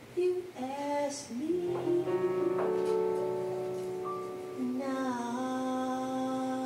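Female jazz vocalist singing long held notes that slide between pitches, accompanied by piano in a live jazz quartet.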